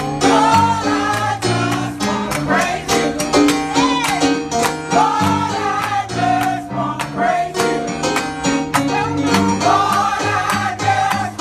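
Gospel choir singing with a live band, amplified through stage speakers: voices rising and falling over a bass line and a drum kit keeping a steady beat.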